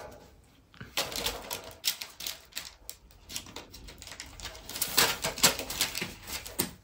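Metal wire birdcage rattling: a run of quick, irregular clicks and clatters from its bars as it is handled, busiest about five seconds in.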